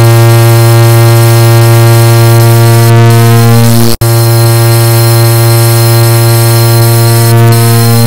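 A car horn sound, edited into one loud, continuous blare at a single steady pitch, with a brief cut about four seconds in.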